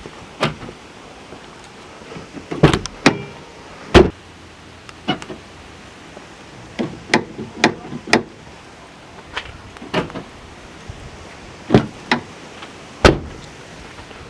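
A run of irregular sharp clicks and clunks, about a dozen, some in quick pairs, over a low steady background.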